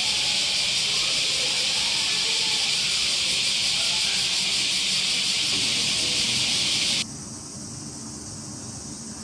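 Loud, steady cicada chorus with a hissing drone. It stops abruptly about seven seconds in, leaving a fainter, higher insect drone.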